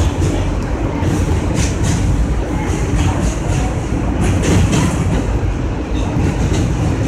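New York City subway train running on elevated track, heard from inside the front car: a steady rumble of wheels on rail, with a few sharper clacks.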